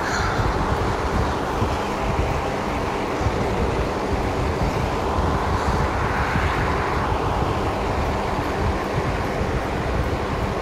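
Large drum fan running, a steady rushing and rumbling.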